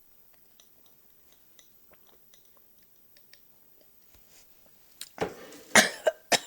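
A person close to the microphone taking a drink of water: faint small mouth clicks at first, then a few louder swallowing gulps and breaths near the end.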